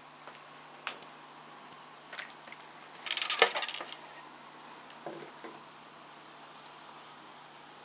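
Handling noise with a metal rattle: a single click about a second in, then a burst of rapid metallic clicking and rattling lasting about a second, about three seconds in. A few lighter taps follow, over a faint steady hum.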